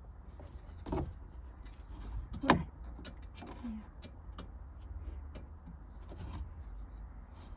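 Scattered sharp knocks and clicks, the loudest about two and a half seconds in, over a low steady hum.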